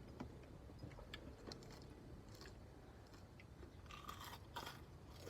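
Faint chewing and crunching of food, with scattered soft clicks and a couple of louder crunches about four seconds in.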